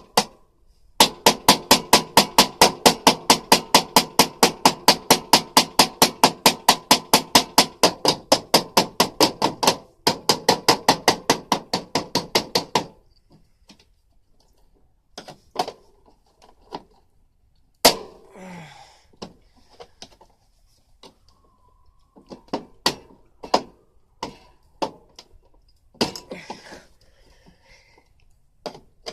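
Rapid, even hammer blows, about four a second, each ringing on metal, keep up for roughly twelve seconds with a short break partway, then give way to scattered single knocks and clanks, as a stuck part is beaten at on an air conditioner.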